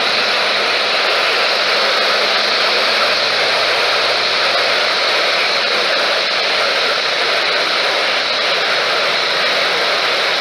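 Loud, steady static hiss from a weather radio receiver, with no voice on the channel.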